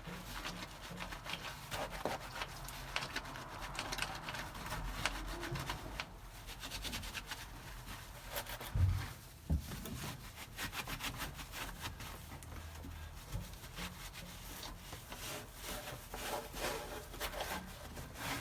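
Repeated scrubbing and wiping strokes on the steel floor pan, washing off rust-dissolver gel with soapy water to neutralise it, with one louder thump about halfway through.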